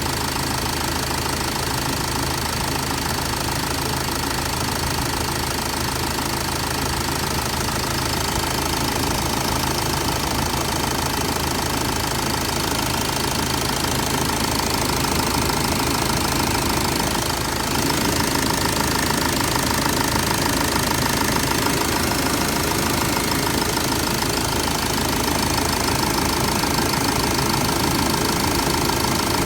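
Vauxhall Vivaro van engine running steadily, with a brief dip about seventeen seconds in and slightly louder after it.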